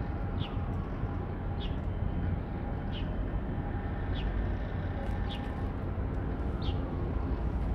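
Harbour ambience: a steady low rumble with no clear source. Over it, a short high chirp that falls in pitch repeats about once a second.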